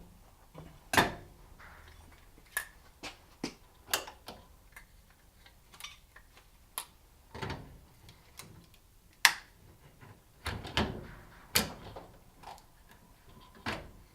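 Irregular metallic clicks and knocks of AR-15 rifle parts being handled and fitted together during final assembly, with a few sharper knocks among lighter clicks.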